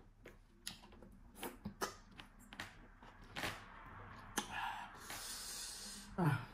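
Close-up eating sounds: wet mouth clicks and lip smacks from chewing fufu and okra soup, with fingers squishing the soft fufu in the soup. About five seconds in comes a longer hiss-like slurp, then a short vocal sound falling in pitch.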